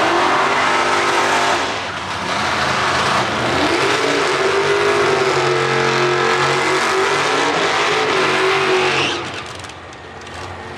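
Drag-racing street car's engine held at high revs during a burnout. The pitch dips about two seconds in, climbs again and holds for about five seconds, then falls away about nine seconds in.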